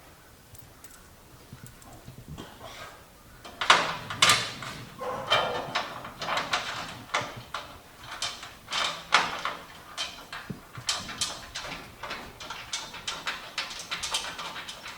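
Irregular knocks, clunks and scraping of body panel parts being handled and fitted, starting about three seconds in and going on in uneven bursts.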